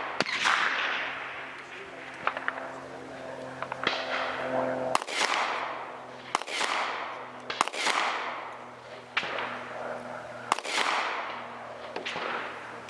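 A pistol fired single shots, about five sharp reports spaced one to five seconds apart, each followed by a long rolling echo.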